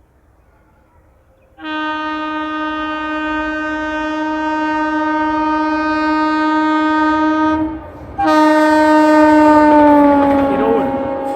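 WAP-7 electric locomotive's horn sounding two long blasts: the first lasts about six seconds, and after a short break the second falls in pitch as the locomotive passes close by, with the rush of its passing.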